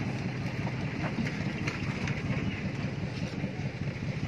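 Steady low rumble of vehicle engine noise, with a few faint clicks.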